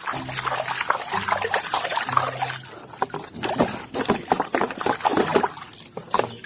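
Water splashing and sloshing in irregular bursts as a muddy toy is scrubbed and rinsed by hand. A low steady hum comes and goes three times in the first few seconds and once near the end.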